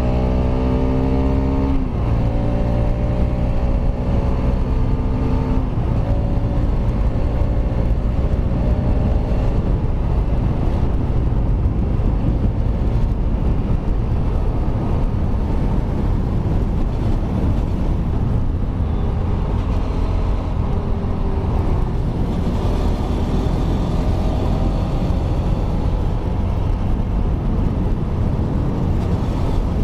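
Kawasaki Rouser RS200 single-cylinder engine, run without its exhaust canister, pulling up through the gears: its pitch climbs, drops at upshifts about two and six seconds in, then holds steady at cruising speed under a rushing noise.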